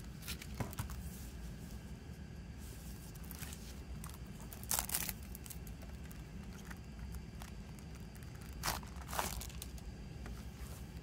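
Plastic shrink wrap being torn and peeled off a CD jewel case, crinkling in a few short bursts: a small one near the start, the loudest about five seconds in, and two more about nine seconds in.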